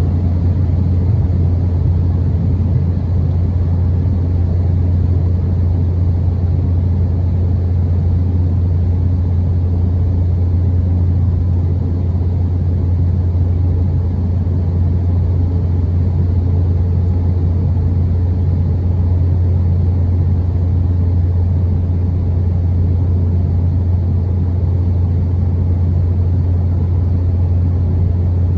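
Cabin noise of an Embraer E190 in the climb after takeoff: a steady low drone from its GE CF34-10E turbofan engines and the airflow, heard inside the cabin by the wing.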